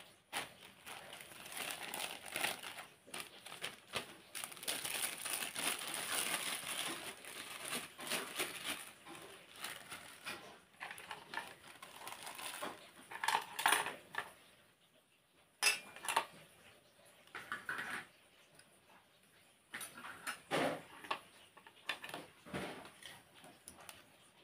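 Thin plastic bags crinkling and rustling as they are opened and filled, with a metal ladle and spoons clinking against a wok and pots. The rustling is dense through the first half; after that come scattered short clatters and clinks with pauses between them.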